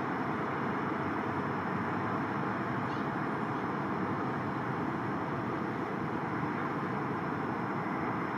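Distant Antonov An-124's four D-18T turbofans at taxi power: a steady, even roar with a faint hum, not rising.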